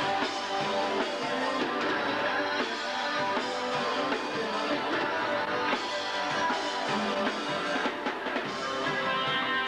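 Rock band playing live: electric guitars over a drum kit, the recording thin in the bass.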